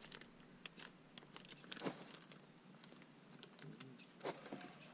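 Light, irregular clicks and small rattles of fishing tackle being handled, as soft-plastic lures and jig heads are sorted through. A few faint, high bird chirps come near the end.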